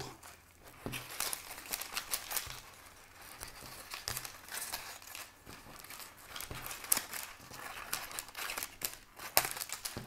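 Adhesive hook-and-loop (Velcro) tape and its peeled backing paper handled as two strips are pressed together back to back: an irregular crinkling with scattered small clicks.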